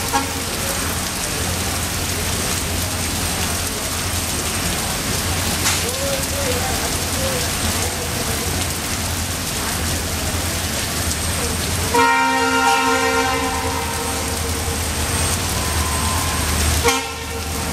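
Twin EMD WDG-4 diesel locomotives approaching under a steady rush of rain and waterfall spray, their engines a low rumble beneath it. The locomotive horn gives a brief toot right at the start, a long blast about twelve seconds in that fades over a couple of seconds, and another short toot near the end.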